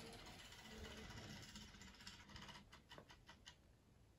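Faint whir of a radio-controlled wall clock's quartz movement driving its hands round quickly as it sets itself to the time signal, with a quick run of about eight soft clicks a little past halfway through.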